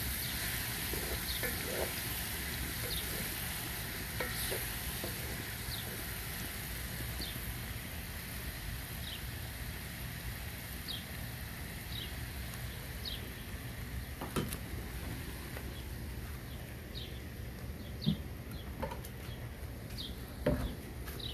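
Bopis sizzling and simmering in a steaming aluminium wok, with a wooden spatula stirring through it at first. A few sharp knocks come later on.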